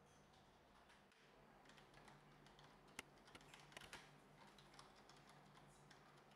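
Faint typing on a computer keyboard: a handful of soft, scattered key clicks around the middle, otherwise near silence.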